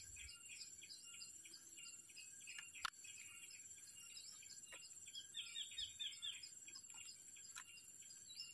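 Faint ambience of small birds chirping over and over, with a steady high insect whine behind them. A single sharp click comes about three seconds in.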